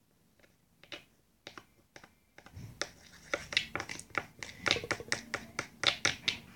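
A pen tip stirring a soft lipstick mixture in a small plastic cream-jar lid: a few scattered clicks at first, then from about two and a half seconds in, quick dense tapping and scraping against the plastic.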